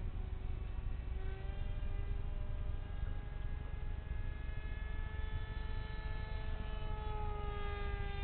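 RC F-22 park jet's electric motor and 6x4 propeller whining steadily in flight, the pitch sagging slightly near the end. A low rumble runs underneath.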